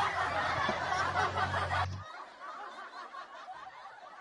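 A person's breathy snickering laughter over a steady low hum, both cutting off suddenly about halfway through and leaving a much quieter stretch.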